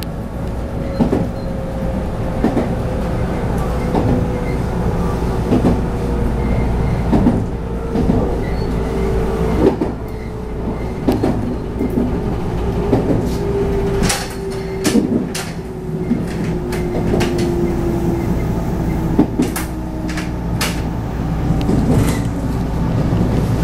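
JR West 221 series electric train running, heard from inside the car: a steady rumble with a drive hum that slowly falls in pitch, and regular clacks of the wheels over rail joints, with a run of sharper clicks in the second half.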